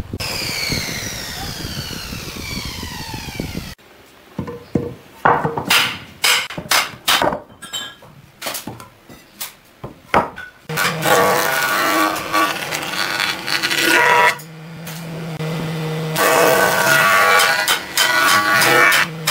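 A falling whine, then about a dozen sharp knocks of rough-sawn wooden boards set down on one another. After that a jointer planer runs with a steady hum, growing loud twice as a board is fed across its cutterhead.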